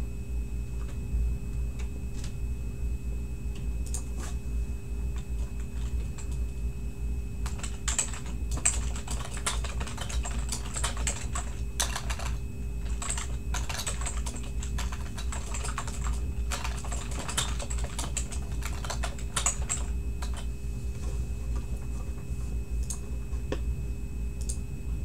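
Typing on a computer keyboard: runs of quick key clicks, thickest through the middle stretch, with scattered clicks near the start and end, over a steady low hum.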